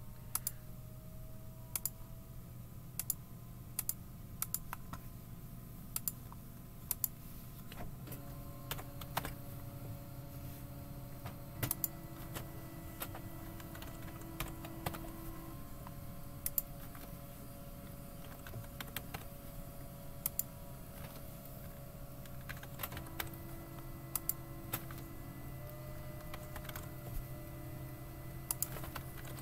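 Typing on a computer keyboard: irregular keystroke clicks, single and in short clusters, over a steady low hum.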